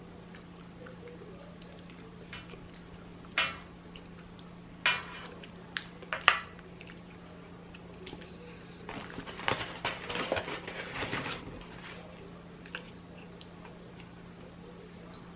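A person eating a fried chicken sandwich, with a few separate mouth clicks and smacks, then a dense burst of crackling about nine seconds in that lasts a couple of seconds. A steady low hum runs underneath.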